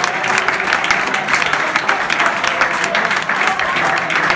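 Large audience applauding steadily, with many voices in the crowd mixed in.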